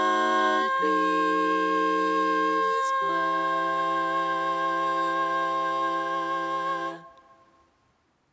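Closing bars of an a cappella vocal arrangement: voices humming long held chords that change twice, then stop about seven seconds in and die away to silence.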